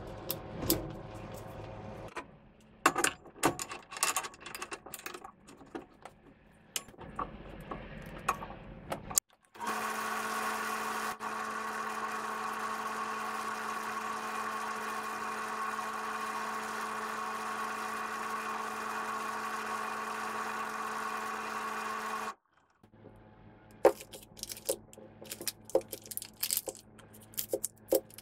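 Drill press running steadily with the armature of a Makita 7100-B electric chainsaw motor chucked in it, a red abrasive pad held against the spinning commutator to clean it. It starts about nine seconds in and stops abruptly some thirteen seconds later. Before and after it come scattered clicks and taps of small metal parts being handled.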